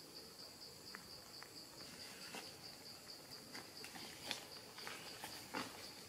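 An insect chirps steadily in rapid, even pulses at a high pitch. Scattered soft clicks and rustles sound over it, with a louder one about four seconds in and another near the end.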